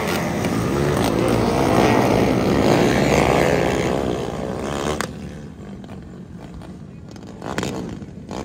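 A pack of dirt-track outlaw karts racing past, several engines running hard at once, their pitches wavering up and down. About five seconds in the sound drops off abruptly to a quieter, more distant engine drone.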